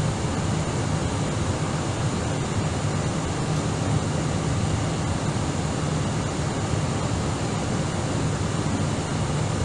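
Steady cabin noise of an Airbus A319 airliner in descent: the rush of air along the fuselage over the low drone of its jet engines, unchanging throughout.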